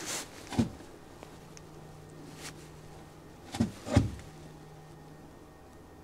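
Metallic clicks from a Winchester Model 70 rifle's controlled-feed bolt action being worked. There is one click about half a second in, then two sharper clicks a little under half a second apart near the middle, over a faint steady hum.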